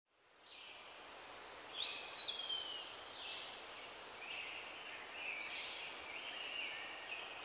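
Faint forest ambience: birds calling at intervals over a soft background hiss. About two seconds in, one call rises and then slides down in pitch.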